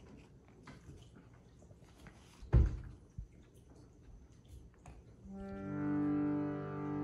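Harmonium beginning to sound about five seconds in: a steady held chord of reeds as the bellows are pumped. Before it, a few light clicks and a single sharp thump about two and a half seconds in.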